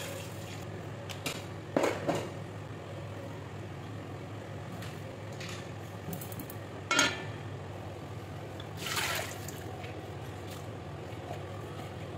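Metal cookware clinking and knocking a few times, a steel bowl and pots being handled on the stove, over a steady low hum. There is a double knock about two seconds in, another short clink near seven seconds, and a brief rattle near nine seconds.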